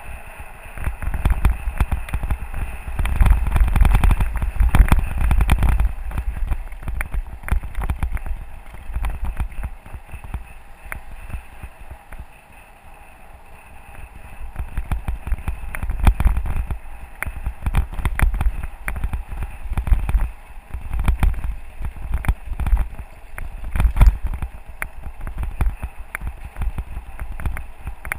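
Mountain bike riding over a gravel forest track: wind rumbling on the microphone and a constant run of rattles and clicks from the bike on the rough surface, quieter for a few seconds around the middle.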